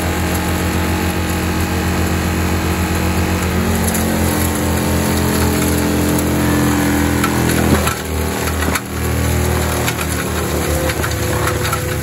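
Tracked skid steer running under load with its forestry mulcher drum grinding brush and soil into mulch, a steady mechanical drone. A sharp crack about two-thirds of the way in is the loudest moment, with the sound briefly dipping just after.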